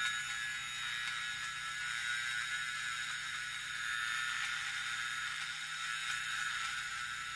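Experimental electronic noise drone: a steady hiss-like wash with several held high tones in it and a low hum underneath, unchanging throughout.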